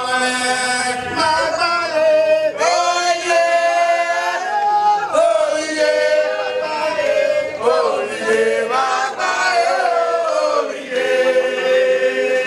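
A group of voices singing together in long, held notes.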